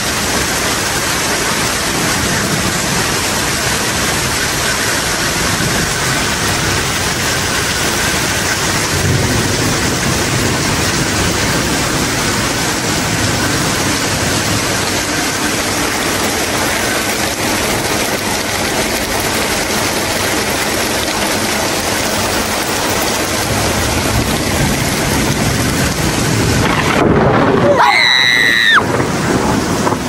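Heavy rain pouring steadily, with low thunder rumbling now and then. Near the end a person yells once, for about a second and a half, the pitch dropping away at the end.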